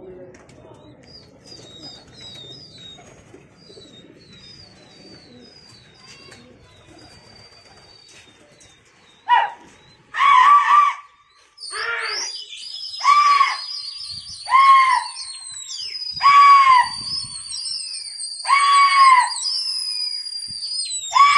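Repeated loud, high-pitched yells, one about every second and a half, starting about nine seconds in, with long high whistles sounding over them. Before the yells there are only faint chirps over low background noise.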